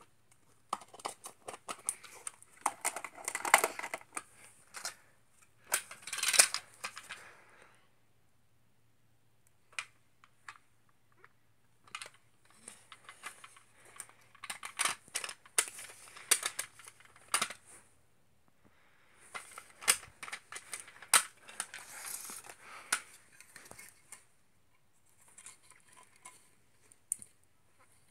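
Plastic toy pieces, LEGO bricks and a clear plastic box, being handled and moved about: bursts of clicks, taps and light rattles, with two quiet pauses along the way.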